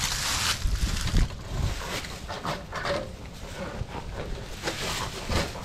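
Steel sectional drain-cleaning cable being handled and pushed into a drain cleanout by hand: irregular scraping and rustling with scattered clicks.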